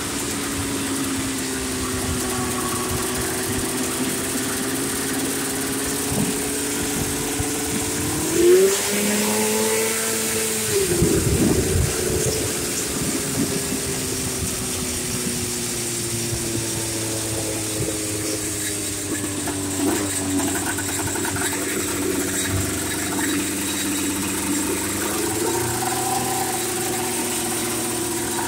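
440 two-stroke engine of a golf cart running as the cart drives along. The engine note drifts slowly in pitch, rises sharply about eight seconds in, and drops back a couple of seconds later.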